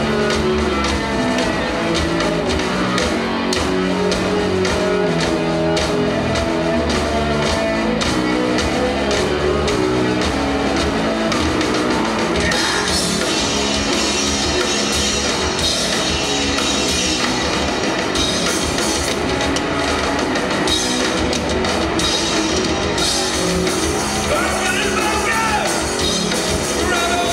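Loud live heavy rock from a full band: distorted electric guitar, bass guitar and drum kit playing together.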